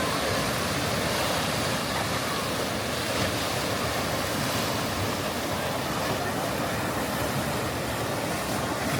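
Steady rushing of water on a boat water ride, an even noise without breaks.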